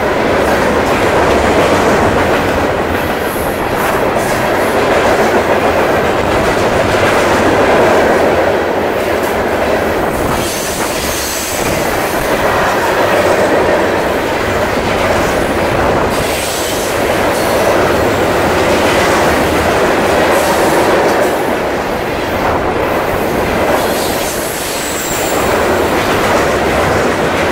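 CSX freight train's hopper cars rolling past at speed: a loud, steady rumble and clatter of steel wheels on the rails, with a few brief high-pitched wheel squeals.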